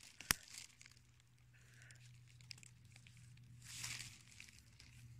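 Faint rustling of leaves and undergrowth on the forest floor as a hand picks a mushroom, with a sharp click just after the start and a louder rustle about four seconds in.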